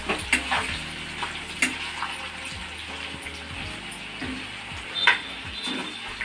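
Grated raw mango frying in oil in a black kadai, stirred and scraped with a steel spoon: a light sizzle under a few sharp clinks of the spoon against the pan, the loudest about five seconds in.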